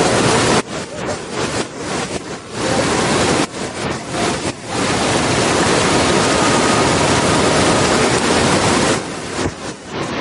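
Waterfall: loud rushing, crashing water, steady in the middle but dipping briefly several times, in the first few seconds and again near the end.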